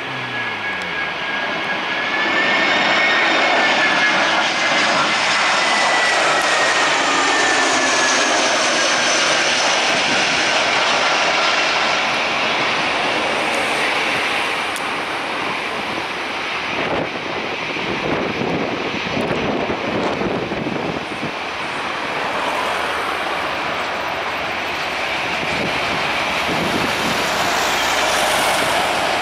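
Airbus A320-214 jet engines whining as it passes low overhead on approach, the whine gliding down in pitch as it goes by. About halfway through comes a rougher, unsteady rumble as the airliner touches down and rolls out, settling to a steadier hum near the end.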